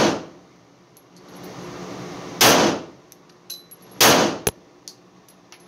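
FXH-45 Moxie .45 ACP pistol firing Tula steel-case rounds: a shot right at the start, then two more about a second and a half apart, each echoing briefly, with light clicks between them. The pistol is cycling and feeding the steel-case ammunition without a hitch.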